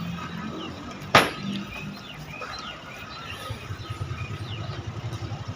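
Small birds chirping in short falling notes, with one sharp click about a second in and a low rhythmic pulsing that starts past the middle.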